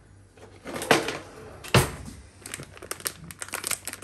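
A semolina packet being cut open with scissors and handled: two knocks about one and two seconds in, the second the loudest, then quick crinkling of the packet.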